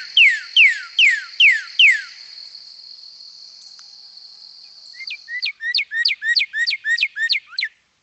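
Northern cardinal song: a run of loud clear whistles, each sliding sharply downward (the 'laser beam' call), at about two and a half a second. After a pause of about three seconds comes a faster run of about eight two-part slurred notes (the 'birdie, birdie' call). A steady high insect buzz runs underneath until about five and a half seconds in.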